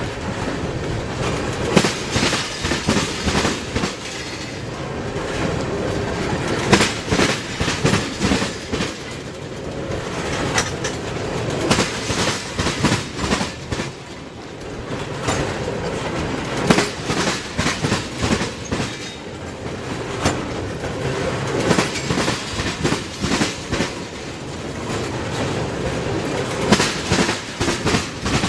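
Freight train of tank cars rolling past at a railroad crossing: a steady rumble of the cars, broken every few seconds by a quick group of wheel clacks as each car's wheel sets pass over the rail joints.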